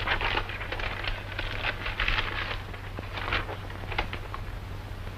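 Paper rustling and crinkling in short irregular bursts as a telegram is opened and handled, over a steady low hum of an old film soundtrack.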